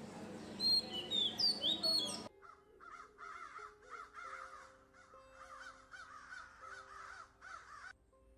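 Small birds chirping with high, falling whistled notes, then, about two seconds in, an abrupt change to crows cawing over and over. Soft sustained music notes run underneath the cawing.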